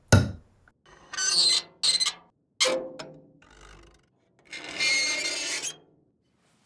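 A fork strikes a plate once, then black chalk scrapes across a rough, cracked plaster wall in a series of short strokes, the last a longer scrape of about a second.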